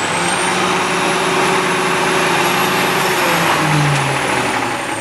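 Truck engine running steadily with a hiss, and a thin high whine that rises slowly and falls back.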